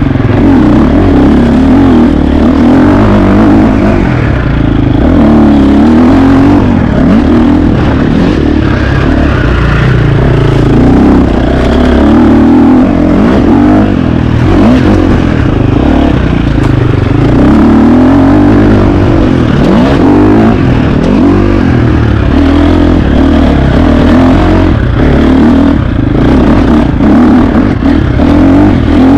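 KTM 350 XC-F single-cylinder four-stroke dirt bike engine being ridden hard, its revs rising and falling continuously as the rider works the throttle and gears. The engine is loud throughout.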